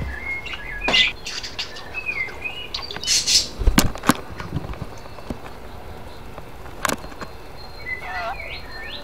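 Budgerigar chirping in short warbling notes, mostly in the first few seconds and again near the end, with a few sharp clicks and knocks in between.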